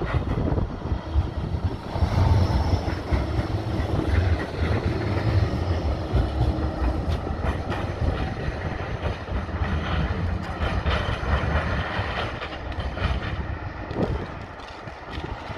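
Bombardier Flexity 2 tram passing close by: its wheels run along the rails with a low rumble and a run of sharp clicks as it goes past. The sound fades as the tram moves away near the end.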